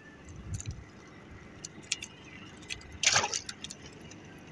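Water splashing and dripping at the side of a wooden outrigger boat as a fishing line is hauled in by hand, with a louder splash about three seconds in and a few light knocks.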